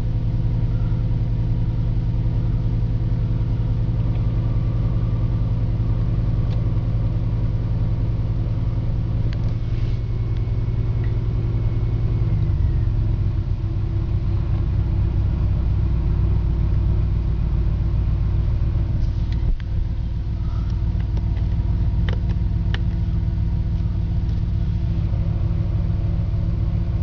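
2006 Mercedes engine idling, with an exhaust leak, steady and loud. About halfway through, the idle speed drops to a lower, even pitch.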